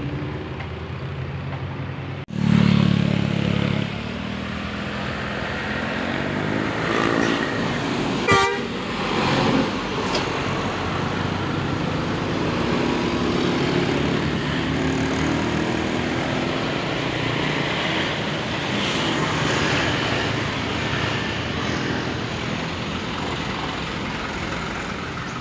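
Road traffic with a bus going by, its basuri 'telolet' multi-tone horn playing held notes over the engine and tyre noise. A loud low passage starts abruptly about two seconds in, and there is a sharp loud blast about eight seconds in.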